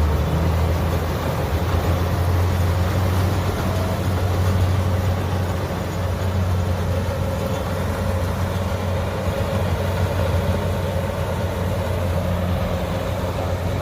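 Kubota DC60 combine harvester's diesel engine running steadily under way, a constant low drone.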